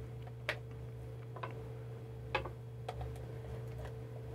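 About five light, scattered clicks and taps as AA batteries are pried out of the spring contacts of a blood pressure monitor's battery compartment and set down on a tabletop.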